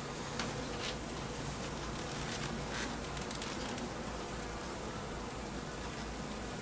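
Honeybee colony humming steadily around an opened hive, with a few faint ticks.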